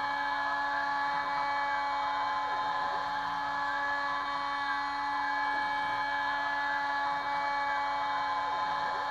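Kress FME 800 router spindle on a Stepcraft 2/420 CNC running steadily at about 11000 rpm while milling aluminium: a constant whine made of several steady tones over a hiss of cutting. A faint pitch sweep that rises and falls comes about every three seconds.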